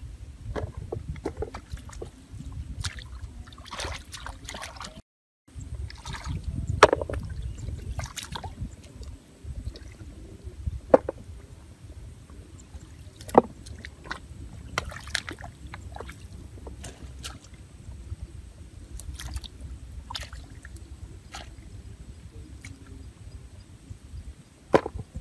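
Shallow muddy water sloshing and splashing as it is bailed out with a bucket and stirred by hands groping in the mud, with a few sharp splashes. The sound drops out briefly about five seconds in.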